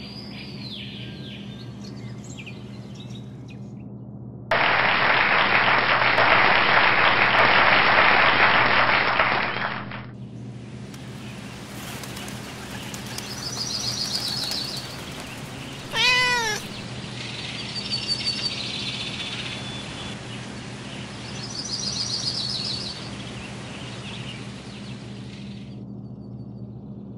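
Sound effects over a low steady drone: a loud rushing noise for about five seconds, then high birds' chirping in short trills, and a single cat meow falling in pitch about halfway through.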